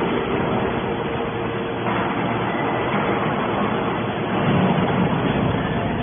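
Hydraulic scrap metal baler running: a steady machine hum with a constant tone, swelling slightly about four and a half seconds in.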